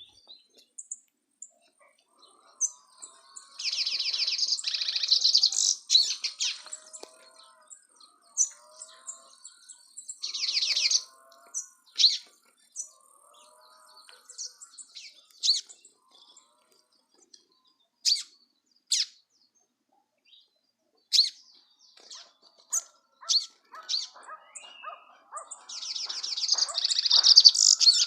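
Canaries at a nest with newly hatched chicks chirping: three bursts of rapid, high-pitched chirps, about four seconds in, about ten seconds in and near the end, with scattered single chirps between.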